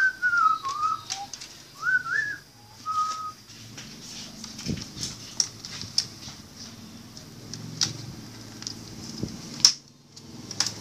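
A person whistling a short melody in gliding notes for about the first three seconds. After that come scattered sharp clicks and taps as hands handle the plastic screen bezel of a Toshiba C640 laptop during a screen replacement.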